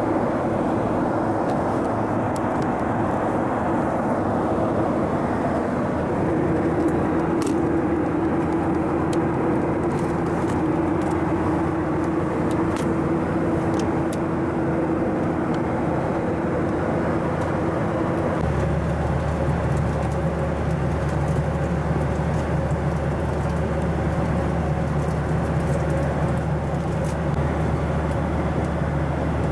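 Steady drone of a Boeing 737-800 heard inside the cabin: CFM56-7B engine hum under rushing air noise. About two-thirds of the way through, the engine tone shifts, from a mid hum to a deeper low drone.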